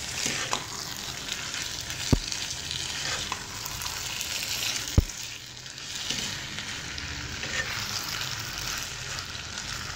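Chicken, bell peppers and shredded cabbage sizzling in a wok while being stirred and tossed with a silicone spatula, with two sharp knocks about two and five seconds in.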